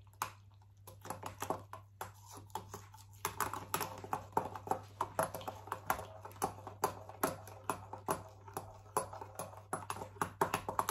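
A utensil stirring and clicking against the inside of a clear plastic cup, mixing a yeast starter of warm water, sugar, yeast and flour: quick irregular clicks and taps, a few a second, getting busier a few seconds in.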